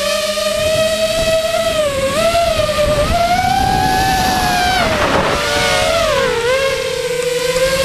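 FPV mini quadcopter's brushless motors and propellers whining in flight, heard from the onboard camera. The pitch rises and falls with the throttle, dipping about two seconds in and again about six and a half seconds in, with a short rush of air about five seconds in.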